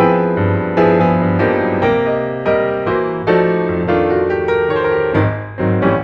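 Background piano music: notes and chords struck every half second to second, each ringing and fading before the next.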